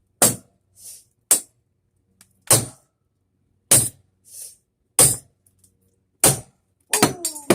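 Six hard hammer blows, about one every second and a bit, knocking a brass doorknob off a door. Near the end comes a metallic clatter with ringing as the loosened knob parts come free.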